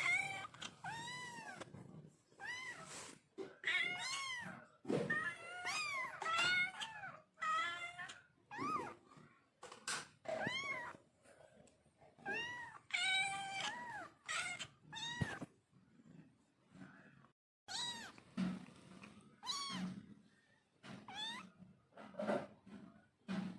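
Cats meowing over and over, each meow rising and then falling in pitch. Some calls overlap, and there is a short pause about two-thirds of the way through.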